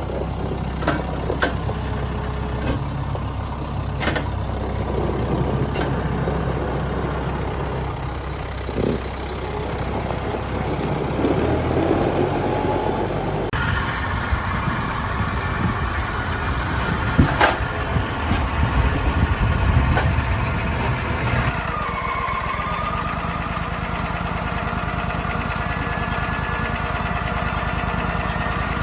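Machine engine running steadily, changing in pitch and load a couple of times, with occasional sharp knocks and clanks.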